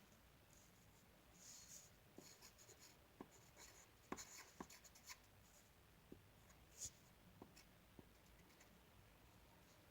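Faint strokes of a drawing tool scratching on paper, short scratchy strokes and light taps coming in uneven clusters, dying away in the last couple of seconds.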